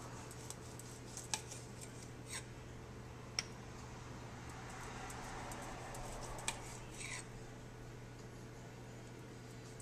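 Kitchen knife slicing a tomato, the blade knocking against a hard cutting board in a handful of sharp, spaced-out clicks over a steady low hum.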